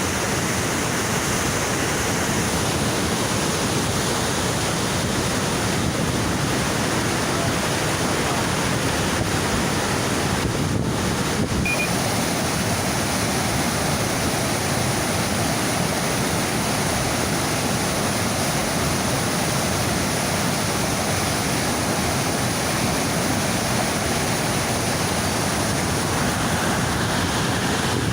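Niagara River rapids rushing just above the falls: a steady, unbroken wash of white water.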